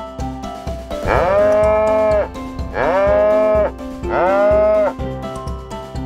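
A cow mooing three times, each a long call that rises in pitch and then holds before breaking off. The herd is thirsty, its water tub having run dry.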